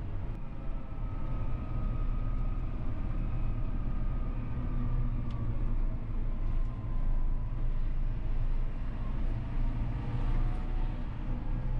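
John Deere 6R 215 tractor's six-cylinder diesel engine running steadily: a low drone with a faint whine above it.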